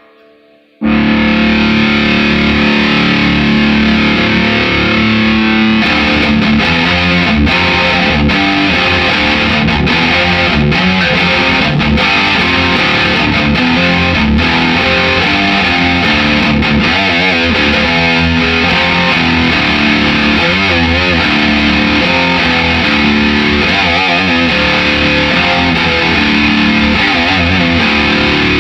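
Gibson Les Paul electric guitar played with a pick through a distorted amp head and speaker cabinet, the head connected to the cabinet by an old instrument patch cable instead of a proper speaker cable. It comes in suddenly with a held chord, then fast picked metal riffing from about six seconds in.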